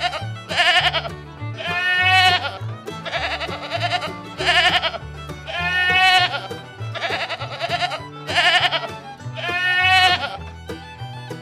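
Sheep bleating repeatedly, about eight quavering calls, some short and some drawn out, over background music.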